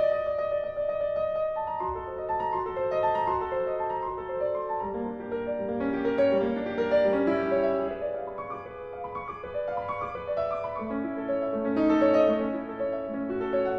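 Background piano music, a steady run of separate notes.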